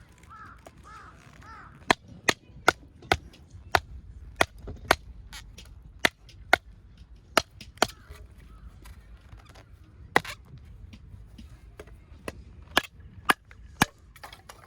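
Campfire of split firewood crackling, with sharp irregular pops from the burning wood, sometimes several within a second.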